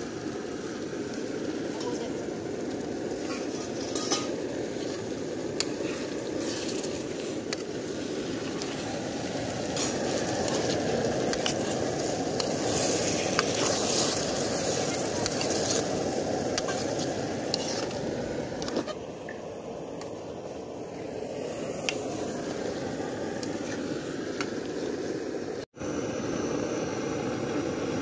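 Curry sizzling in an iron kadai, with a metal spatula stirring and scraping against the pan and occasional clicks of utensils.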